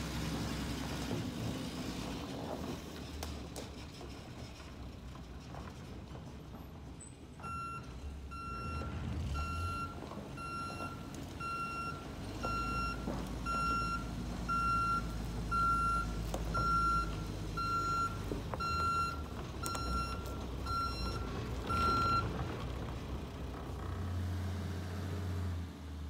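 Cab-over truck's engine running as it turns and reverses, its backup alarm beeping about once a second from around seven seconds in until about four seconds before the end.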